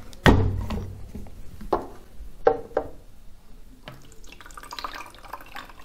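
A few plastic clicks and knocks as the caps come off, the loudest a sharp knock just after the start. About four seconds in, water starts pouring from a plastic bottle into a steam inhaler's plastic water tank.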